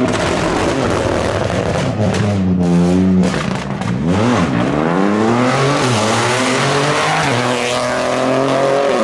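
Rally car engine at race pace, revving hard: the note climbs and holds, then drops and rises again several times through quick gear changes before climbing once more near the end.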